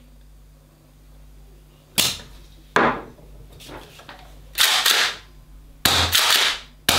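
Fabarm STF12 gas airsoft shotgun being worked and fired. About two seconds in there are two sharp mechanical clacks of the pump action, then loud gas shots, each a sharp pop with a short hiss, about one a second near the end. The gun sounds full and punchy.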